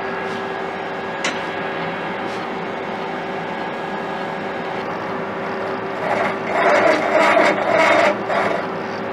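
CNC lathe running with its spindle turning the workpiece, a steady hum with one constant tone. About six seconds in, for two to three seconds, a louder rough scraping in several short stretches: metal rubbing against the spinning work.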